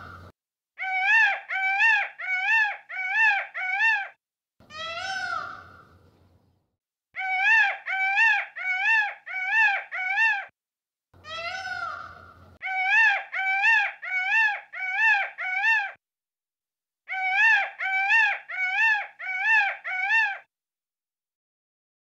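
Peacocks calling: four bouts of five or six short, arching calls in quick succession. Two longer, falling calls come in between the bouts.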